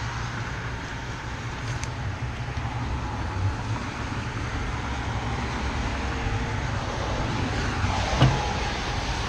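Steady low rumble of road traffic noise, without any distinct event standing out.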